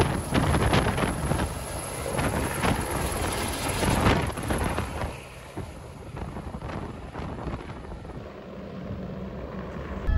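Helicopter running, its rotor and engine noise heard with irregular wind buffeting on the microphone. A high steady whine runs until about eight seconds in, and the noise grows quieter about halfway through.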